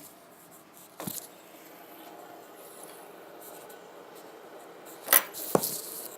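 Small sharp clicks and knocks of fidget spinners being handled on a table: one about a second in, and two louder ones near the end.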